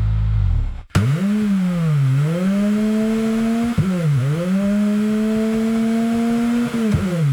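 Car engine at high revs, its pitch dipping and climbing back twice before winding down near the end. It starts abruptly about a second in, straight after a lower steady engine sound cuts off.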